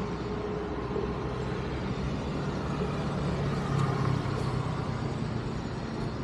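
Car on the road: steady engine and tyre noise with a low hum, a little louder about three to four seconds in.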